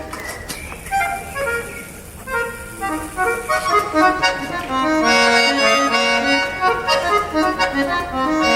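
Accordion playing a melody of short notes, softer for the first few seconds and then fuller and louder from about halfway.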